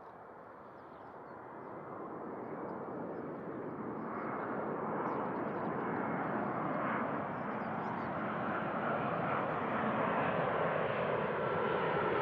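Boeing 787-9 Dreamliner's Rolls-Royce Trent 1000 turbofans on final approach for landing. The jet noise grows steadily louder as the airliner closes in overhead.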